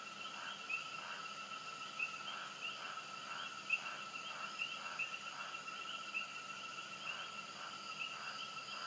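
Night-time chorus of calling insects and frogs: a steady high trilling with short chirps repeating a little more than once a second.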